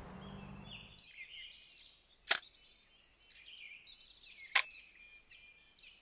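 Songbirds chirping and calling. Two sharp knocks stand out, about two seconds apart, and a low rumble fades out in the first second.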